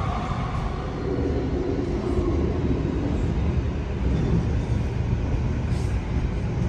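Canada Line SkyTrain car running, heard from inside the passenger cabin: a steady low rumble of the wheels and running gear, with a pitched motor whine in the first few seconds.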